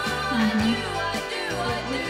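Background music: a song with a singing voice over a steady beat and bass line.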